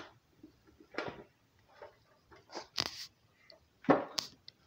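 Scattered clicks, knocks and rustles of hands handling a small RC speedboat's plastic hull in its foam packaging, with a sharp click a little before three seconds in and another about four seconds in.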